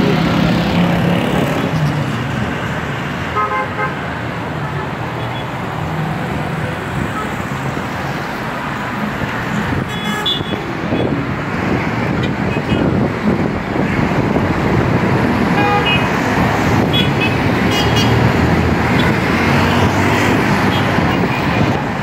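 Busy road traffic at night, a steady wash of cars passing, with short horn toots several times.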